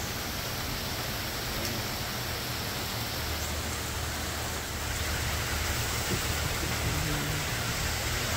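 Heavy rain falling steadily, an even hiss. A low rumble joins about halfway through.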